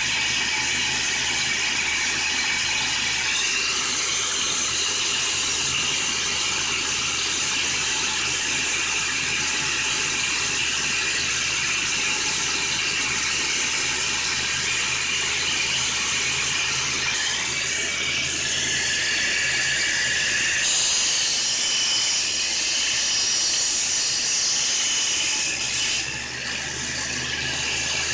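Homemade belt sander driven by a 4-inch angle grinder, running steadily with a high-pitched motor whine as the sanding belt turns over its rollers. About twenty seconds in the sound turns harsher and a little louder, then dips briefly near the end.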